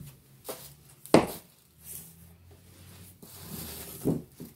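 Objects being handled and set down: one sharp knock about a second in, then a few softer bumps and rustles.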